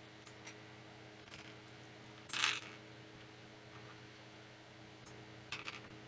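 Loose plastic LEGO pieces clicking and clattering as they are picked through on a wooden table, with one brief clatter about two and a half seconds in and a quick cluster of clicks near the end.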